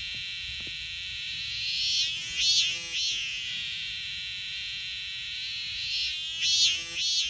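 Robust cicada (minmin-zemi, Hyalessa maculaticollis) singing: a steady high buzz broken twice by pulsing phrases that rise and fall in pitch, about two and a half seconds in and again near the end.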